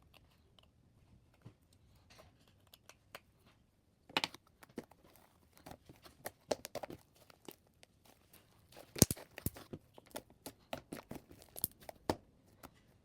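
Fluffy slime being kneaded and pulled by hand: irregular sticky crackles, pops and small tearing sounds, starting about four seconds in and busiest near the middle. The slime tears rather than stretches because it is overactivated.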